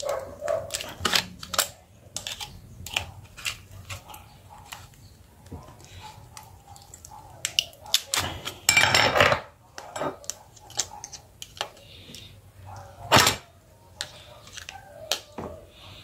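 Small clicks and taps of plastic and metal as an Asus Zenfone 2's opened body is handled and worked on with a small metal tool. A louder, scraping noise about a second long comes about eight seconds in, and a sharp clack about thirteen seconds in.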